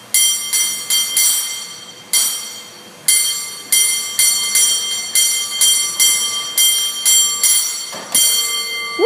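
San Francisco cable car bell rung by hand in a rhythmic, syncopated pattern: runs of quick ringing strikes broken by short pauses, each strike leaving a ringing decay.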